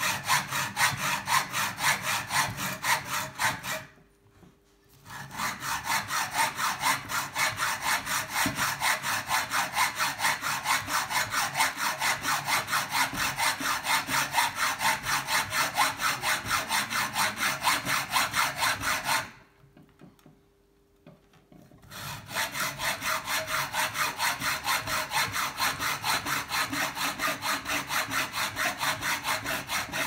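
Hacksaw cutting through a bicycle seat post held in a vise, in quick steady back-and-forth strokes. The sawing stops briefly twice, about four seconds in and about twenty seconds in.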